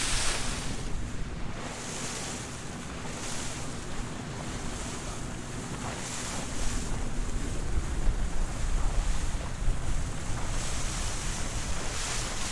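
Wind buffeting the microphone over the rush and slap of choppy water around a moving boat, with a faint steady hum through the first half.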